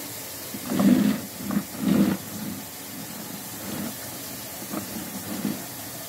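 Water running freely down a drain pipe: a steady hiss of flow with several low gurgles in the first two seconds and a few softer ones later.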